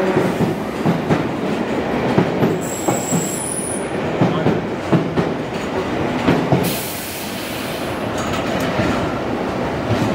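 1938 Tube Stock electric Underground train moving out past the platform, its wheels clattering over the rail joints, with a brief high wheel squeal about three seconds in. The clatter eases off about seven seconds in as the train draws away.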